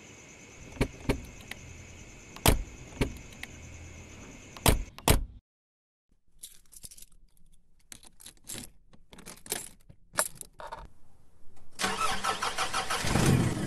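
Sparse sharp keyboard-typing clicks over a faint hiss, a moment of silence, then scattered clicks; near the end a car on the road comes in, running with a dense rattle.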